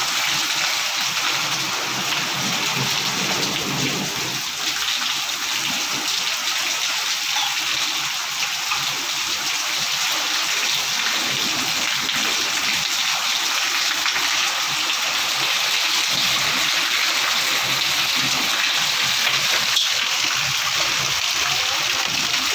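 Heavy rain pouring steadily onto corrugated roof sheets and a brick courtyard, a constant even hiss of falling water with no let-up.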